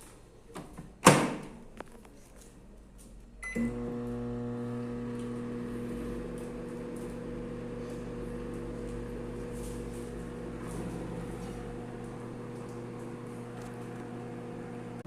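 A loud clack about a second in, a short beep a couple of seconds later, then a microwave oven running with a steady hum.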